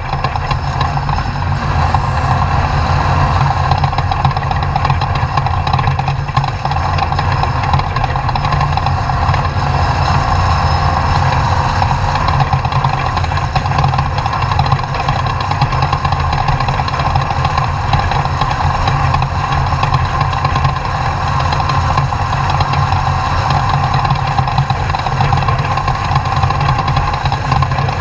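Off-road race truck engine running with a steady, unchanging drone.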